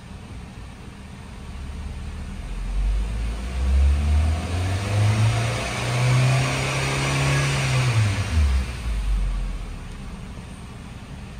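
2014 Nissan Sentra's 1.8-litre four-cylinder engine, heard from inside the cabin, revved from idle up to nearly 4,000 rpm, held there for a couple of seconds, then let fall back to idle.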